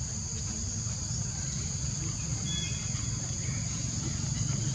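Insects droning, a steady high-pitched hum, over a steady low rumble. A brief faint chirp comes about halfway through.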